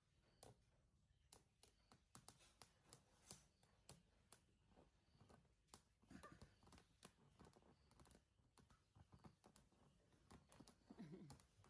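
Near silence: faint scattered clicks and soft rustling, with a couple of brief soft low sounds about halfway through and near the end.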